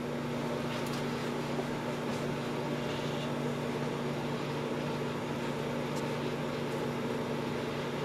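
Over-the-range microwave oven running at full power with a potato inside: a steady hum with a low, even drone.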